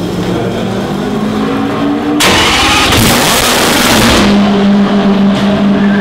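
Ligier JS17's Matra V12 running at idle, revved hard once about two seconds in for about two seconds, then settling back to a steady idle.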